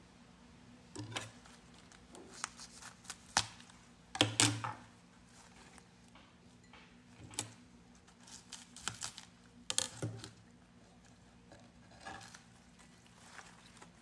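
Scattered soft knocks, taps and rustles of bunches of green onions and coriander being handled and moved about on a wooden cutting board, a few with a dull thud and a couple of sharper clicks.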